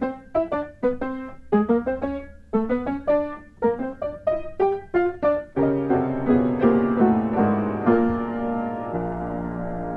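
Background piano music: a quick, light line of short separate notes, changing about halfway to slower held chords.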